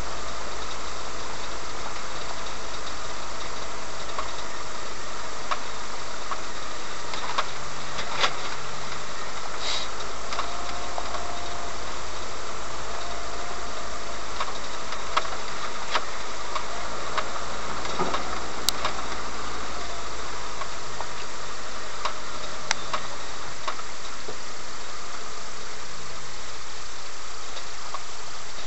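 A 4x4's engine running as it drives along a rough dirt track, heard from a dashcam inside the cab, with a steady noisy hum and occasional short knocks and clicks.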